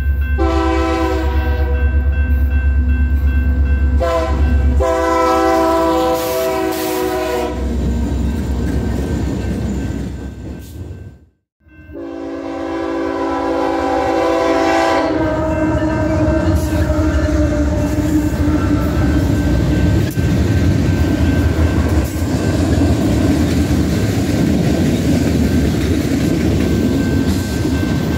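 A diesel locomotive's multi-chime air horn sounding in several blasts over the engine's rumble. After a sudden cut, a BNSF manifest freight's horn blows once more, and then the train rolls past with steady wheel noise and rail-joint clatter.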